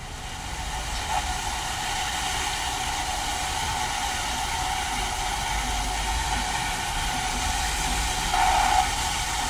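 Steam train running sound: a steady hiss with a held tone underneath, swelling briefly near the end.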